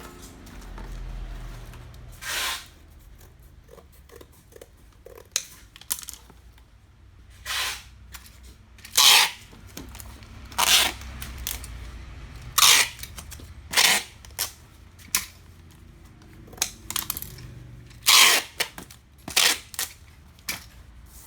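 Parcel being packed by hand: about a dozen short, sharp rasps of packing material, tape and plastic wrap, coming at irregular moments.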